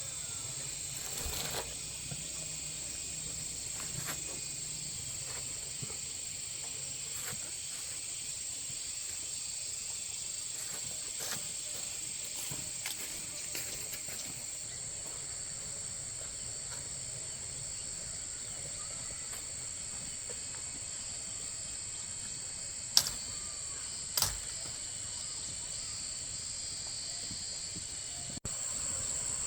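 Steady high-pitched chirring of insects, with scattered light clicks and two sharper knocks about a second apart near the end.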